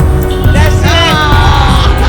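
Music with a sung vocal melody over a dense, steady backing.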